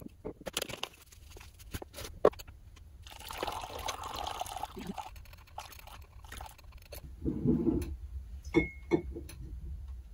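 Water poured from a glass carafe into a pour-over coffee filter cone sitting on a mug, among several sharp clicks and knocks of kitchenware being handled.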